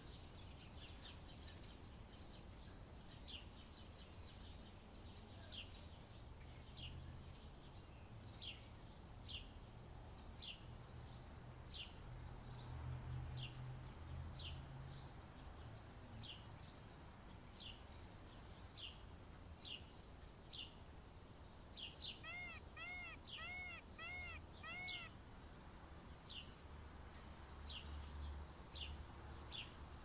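Faint outdoor bird sounds: a small bird gives short falling chirps about once a second, and about three-quarters of the way in another bird calls five times in a quick run of short, arched notes. A low rumble runs underneath.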